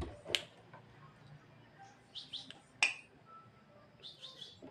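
Javan myna calling: two sharp, harsh clicks about a third of a second and nearly three seconds in, with short runs of quick chirps around two and four seconds.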